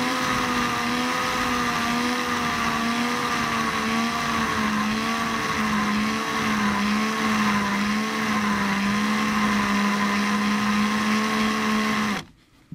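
Cordless electric drill running steadily with a low battery, spinning a plastic model pin against a small hand file; the motor's hum wavers and slowly drops in pitch. The drill stops suddenly near the end.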